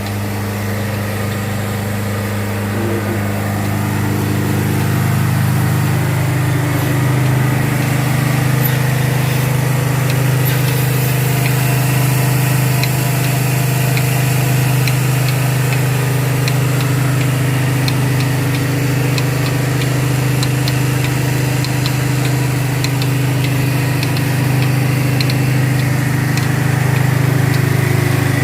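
Generator engine running steadily at a constant speed.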